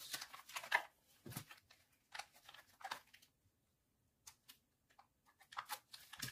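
Plastic shrink-wrap around a stack of books crinkling and rustling as it is pulled and snipped with scissors, in irregular bursts, with a soft knock about a second and a half in.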